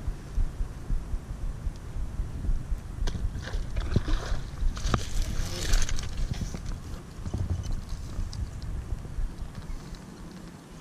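Wind buffeting the microphone while a hooked bass is reeled in on a baitcasting reel and landed, with a few seconds of rustling and sharp clicks about halfway through.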